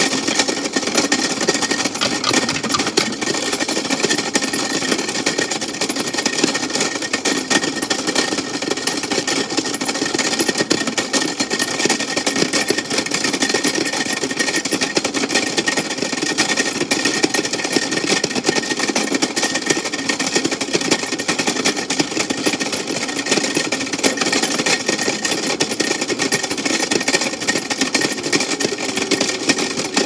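Toy Tide washing machine running in its cardboard packaging, its drum spinning with a loud, steady rapid rattle and a thin, steady high whine.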